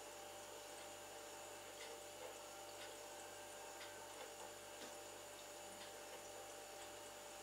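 Near silence: quiet room tone with a steady electrical hum and a faint tick about once a second.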